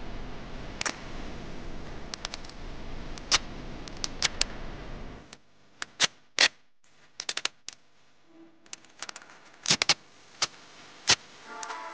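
Packing tape being pulled off its roll and pressed around a small battery, giving scattered sharp crackles and snaps.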